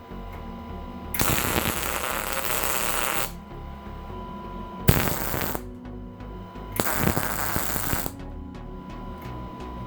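Background music with workshop noises over it: two stretches of rasping noise, the first about two seconds long and the second shorter near the end, and a single sharp knock about halfway between them.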